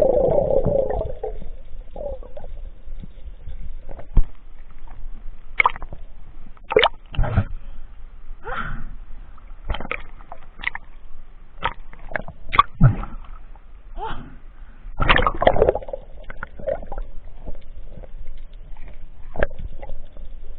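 Underwater sound beside a speared grouper, opening with the fading rush of a dive under the surface, then irregular knocks and clicks with bursts of bubbling and water movement.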